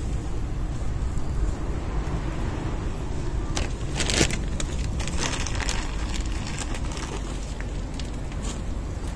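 Wind buffeting the microphone, a steady low rumble, with a few sharp clicks and crackles, the loudest about four seconds in.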